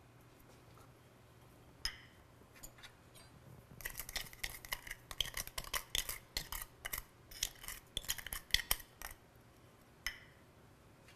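A metal kitchen utensil tapping and scraping as ingredients are knocked off into a mixing bowl: a single click about two seconds in, a quick run of clicks and scrapes from about four to nine seconds, and one more click near the end.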